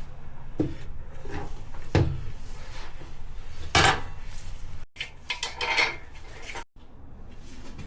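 Metal tire-changing tools clanking and scraping against a motorcycle wheel rim on a manual tire changer while the bead is levered on: a few separate knocks, the loudest about four seconds in.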